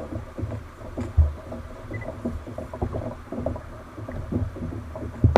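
A kayak on the sea: water sloshing and knocking against the hull, with irregular low thumps.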